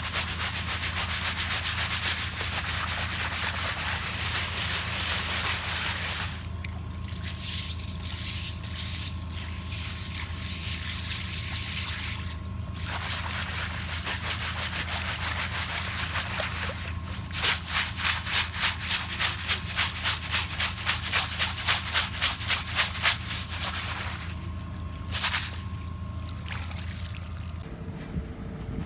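Piling machine's motor running steadily with a gritty scraping, joined partway through by a rhythmic knocking at about two strokes a second, the loudest part; the motor cuts off shortly before the end.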